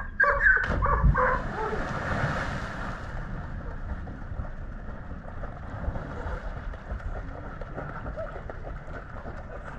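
A person jumping off a sandstone cliff and hitting the water, a hissing splash about two seconds in. After it, steady wind buffeting the microphone.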